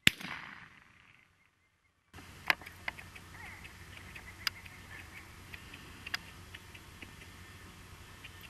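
A single shotgun shot, its report dying away over about a second. After a short break, quiet open-air background with a few sharp clicks scattered through it.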